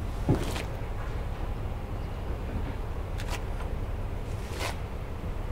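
Steady low outdoor rumble with three short, sharp knocks: the loudest comes just after the start, and two fainter ones come past the three-second mark.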